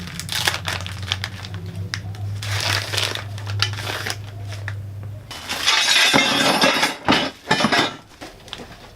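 Bull bar mounting kit being unpacked by hand: packaging rustling and crinkling, with metal brackets and bolts clinking and knocking. A low steady hum runs underneath and stops about five seconds in.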